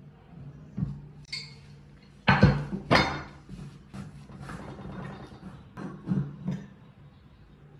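Metal clanks and clinks as the rusted screw cap on top of an old hydraulic bottle jack is worked loose with a pipe wrench: two loud knocks about two and three seconds in, then softer clinks as the cap is turned by hand.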